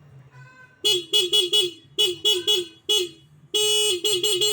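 Honda Vario 125 scooter's electric horn being tested after its adjusting screw was turned and it was refitted with its rubber washer: a run of short beeps in quick bursts, with one longer blast about three and a half seconds in.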